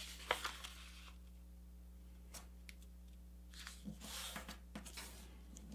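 A sheet of printer paper handled and folded by hand: a few short crinkles about half a second in, a quiet stretch, then rustling and creasing over the last two seconds as the flaps are pressed flat.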